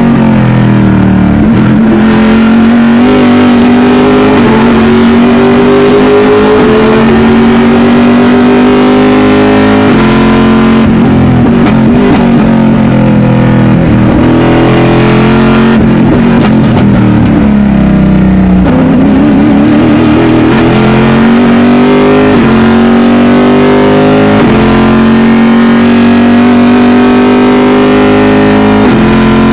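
Corvette C6.R race car's V8 engine heard from inside the cockpit under hard acceleration. It is loud, climbing in pitch through the gears with quick upshifts, and drops sharply on downshifts a few times, about ten, fourteen and nineteen seconds in, before climbing again.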